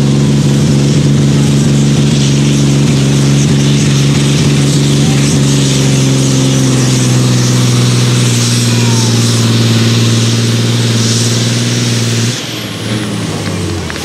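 Iveco truck's diesel engine pulling hard under full load, a loud steady drone with a high hiss over it, as it drags the weight-transfer sledge. About twelve seconds in, the engine is cut at the end of the pull and the sound drops off sharply.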